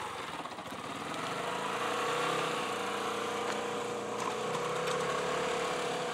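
Engines of a small motorcycle and a pedal-start moped running at low revs, a steady engine note, as the two machines set off together.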